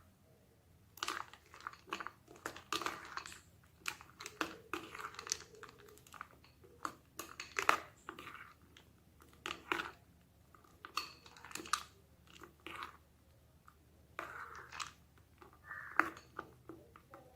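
Creamy mango fruit salad with ice cubes, nuts and dates being stirred in a bowl with a spoon: irregular wet squelches and crunches with a few sharp knocks.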